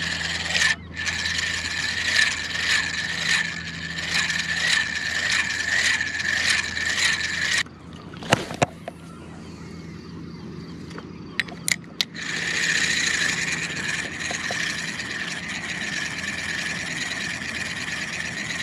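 Spinning reel being cranked to retrieve line, a steady geared whir with a rattle. It stops about 8 s in, a few sharp clicks follow, and the cranking starts again about 12 s in.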